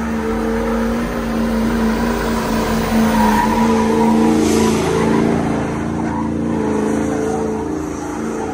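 Pickup truck doing a burnout: the engine is held at high revs in a steady note while the rear tires spin and squeal, a little louder about three seconds in.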